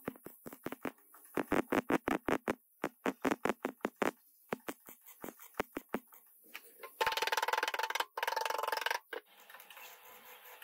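MIG welding torch tack-welding steel body panel seams: quick short bursts of crackling arc, then a steady weld run of about two seconds, broken once briefly, about seven seconds in.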